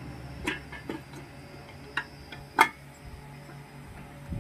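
Hero HF Deluxe gearbox shafts and gears being seated by hand into the aluminium crankcase half: a few separate metal clicks and clinks, the loudest about two and a half seconds in, over a low steady hum.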